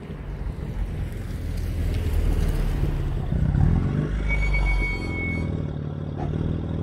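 BMW M2 Competition's twin-turbo straight-six running through catless downpipes and an Active Autowerks midpipe: a low exhaust rumble that grows louder over the first few seconds, is loudest about three and a half seconds in, then eases off a little. A brief high whistle sounds about four seconds in.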